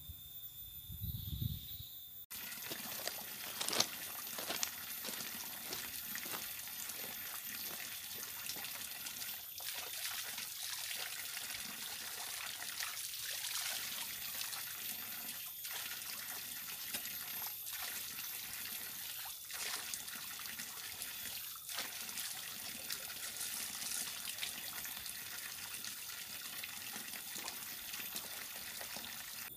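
Spring water running from a small pipe and splashing onto rocks: a steady trickle that starts abruptly about two seconds in.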